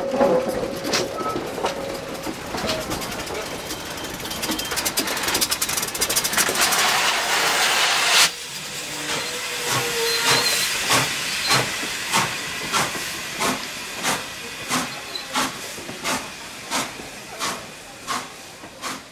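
Norfolk & Western J-class 4-8-4 steam locomotive No. 611 passing close by at low speed. A loud steam hiss builds for about eight seconds and cuts off suddenly. Then comes a regular beat about every two-thirds of a second, slowly fading as the engine and its coaches roll past.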